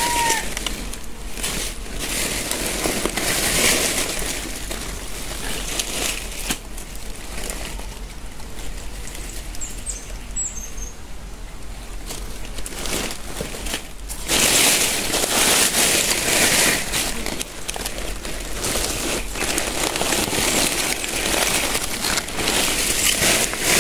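Bare hands scraping and pulling loose soil, pebbles and dry leaves out of a hole under a rock, in rustling, crunching bursts, loudest near the start and again about halfway through. A few faint bird chirps come in about ten seconds in.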